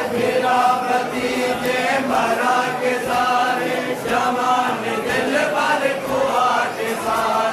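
Men's voices chanting a Muharram mourning lament (noha) in sustained, repeated phrases of about a second each.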